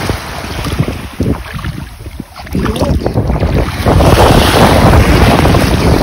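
Wind buffeting the microphone, with sea waves washing on the shore; the wind gets louder about four seconds in.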